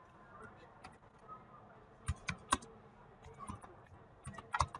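Typing on a computer keyboard: short clusters of sharp key clicks, a few strokes at a time. They come about two seconds in, again about three and a half seconds in, and near the end.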